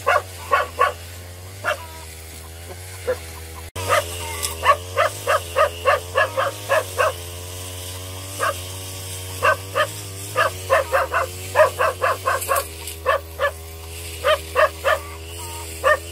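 Caged dogs barking over and over, in quick runs of several barks with short pauses between, over a steady low hum.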